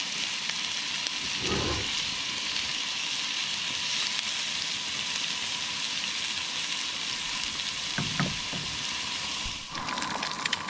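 A ground-beef patty and sliced onions sizzling steadily in a cast-iron skillet on a propane camp stove, with a couple of short low thuds as the spatula works the patty. Near the end the sizzle changes to the sharper crackle of an egg frying in the skillet.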